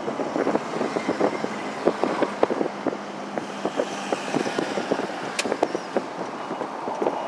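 Car cabin noise while driving: a steady engine hum and road noise, with many irregular light clicks and rattles.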